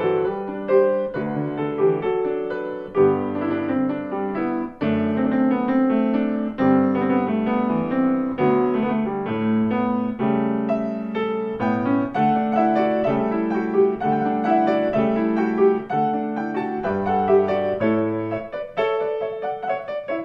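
Piano music: a continuous stream of notes and chords.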